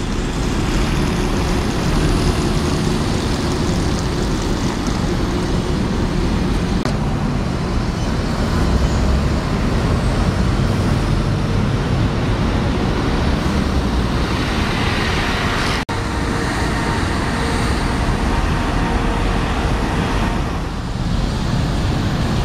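Several buses running and pulling past a busy bus station, mixed with steady road-traffic noise.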